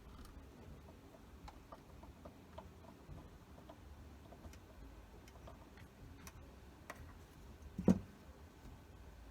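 Faint, irregular light ticks and taps from small parts and tools being handled at a workbench, over a low steady hum, with one louder knock about 8 seconds in.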